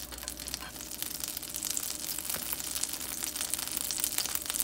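Butter sizzling and crackling as it melts and foams in a hot cast-iron skillet. A steady fine crackle that grows a little louder as the pan heats toward searing temperature.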